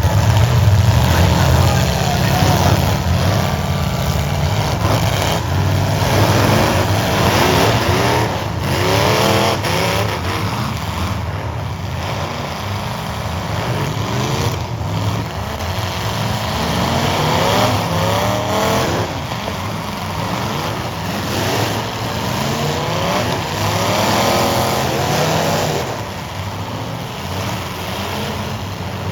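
Several full-size demolition derby cars' engines running and revving, their pitch repeatedly rising and falling over each other, with a few sharp knocks along the way.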